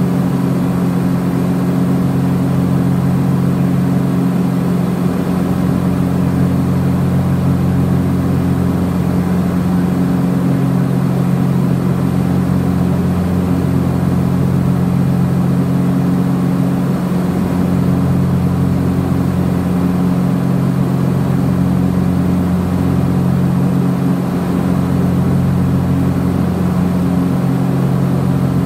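Cabin drone of a Cessna 421 Golden Eagle's two geared, turbocharged Continental piston engines and propellers in flight. It is a steady hum of several low tones, and the lowest tone slowly swells and fades every few seconds.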